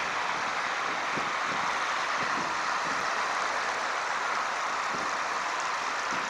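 Steady rushing outdoor noise, with faint low thumps at irregular intervals, about one or two a second.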